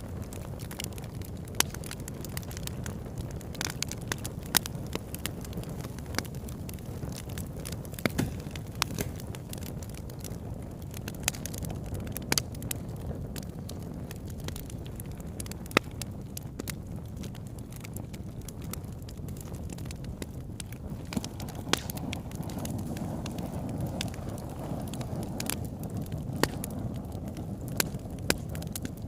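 Campfire burning: a steady low rush of flames with frequent sharp, irregular pops and crackles from the burning wood.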